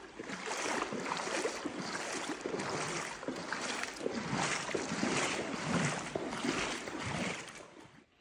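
Footsteps wading through shallow water, splashing about twice a second, fading out near the end.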